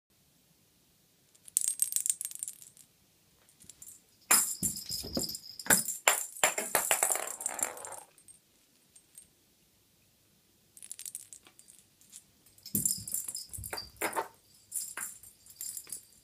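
A cat toy shaken in three bursts of rattling and jingling, with a few dull thumps among them.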